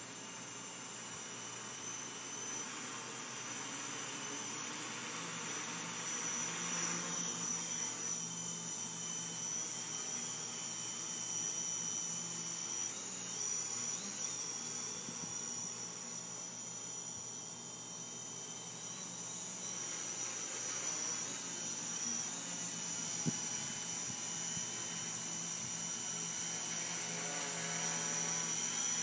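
RC drone hovering, its spinning propellers making a steady high whine that wavers slightly in pitch and loudness.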